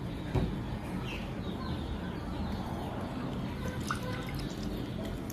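Lime juice trickling and dripping from a hand-held metal lime squeezer into a bowl, with a single soft knock about half a second in.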